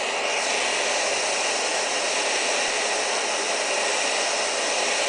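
Sony ICF-2001 receiver's loudspeaker giving a steady rush of static hiss with no station tuned in, between stations while it is being tuned. The hiss cuts off suddenly near the end.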